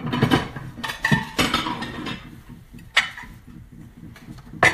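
Dishes clattering as a plate is taken down from a stack, then two sharp knocks about a second and a half apart.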